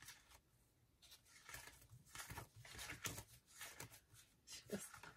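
Faint, irregular rustling and light tapping of paper recipe cards being leafed through and handled.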